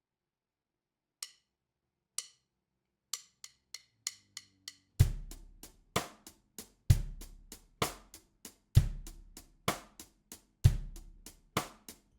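Drum kit playing a 6/8 groove built on a cross-stick rim click, with a bass drum stroke at the start of each bar, about every two seconds. It is counted in by two slow clicks and then six quick ones.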